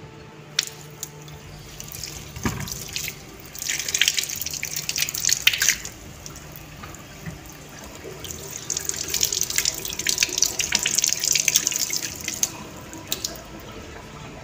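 Kitchen tap running into a sink in two spells of a few seconds each, the water splashing as fruit is rinsed under it. A single knock comes just before the first spell.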